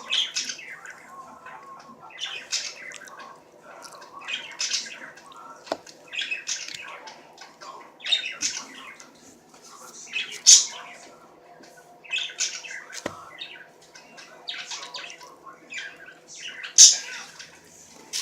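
A bird squawking repeatedly in short, high-pitched calls about every one to two seconds.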